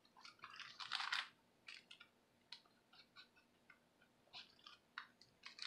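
Soft rustling and crackling of paper as the pages of a small handmade paper junk journal are handled and turned: a short flurry about a second in, then scattered light crackles.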